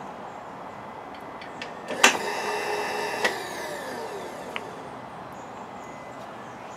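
Milling machine with an end mill working a copper bus bar: steady machine noise, then about two seconds in a sharp metallic hit with a ringing squeal for about a second, a second click, and a falling whine that fades out.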